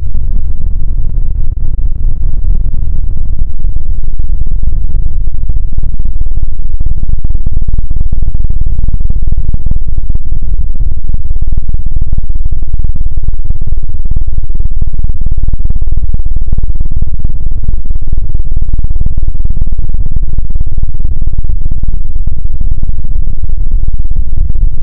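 A loud sound effect slowed down into a deep, continuous rumble, held near full volume without a break.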